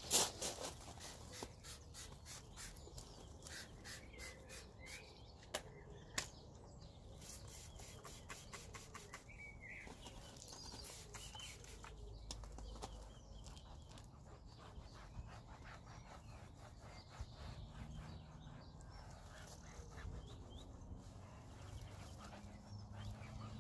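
Faint small clicks and crunches of gravel, densest in the first several seconds, as someone crouches on a gravel drive and wipes a car tyre with a microfibre cloth. A few short bird chirps come through, and a low hum builds near the end.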